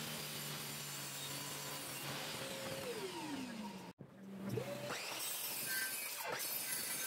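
A table saw running, then its motor spinning down with a falling whine until an abrupt cut about four seconds in. A miter saw then starts up with a rising whine and its blade is pulled down through plywood, the pitch dipping under the load.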